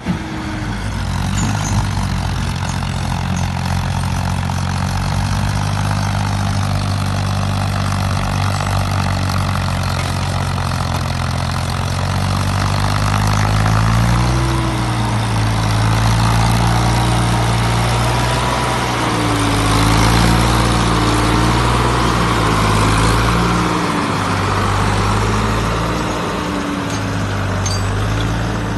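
Modified Ford 3600 tractor's engine running steadily under load while pulling a loaded trailer, its pitch shifting a little now and then.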